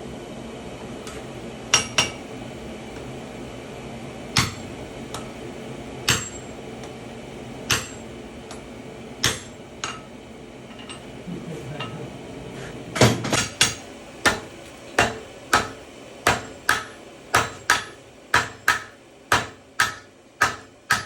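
Hammer blows on hot steel on an anvil, each with a short metallic ring: a few separate blows a second or two apart, then from about two-thirds of the way in a steady run of blows, about two a second, from the smith's hand hammer and a striker's sledge.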